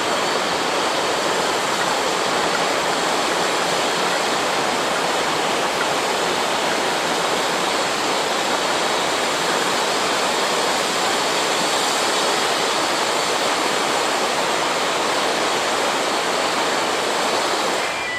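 A fast-flowing river rushing over boulders and rapids, a steady, loud rush of water.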